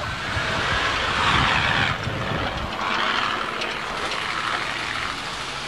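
Off-road trucks' engines running, with a low rumble under a noisy hiss that swells twice.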